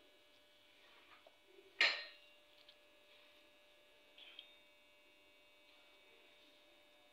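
Steady electrical hum with one sharp clink of kitchenware about two seconds in, followed a couple of seconds later by a few light taps as burger toppings are laid out.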